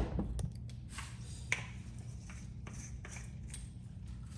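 Light clicks and taps of an old hand drill being handled, with a sharp click at the start and another about a second and a half in, over a low steady hum.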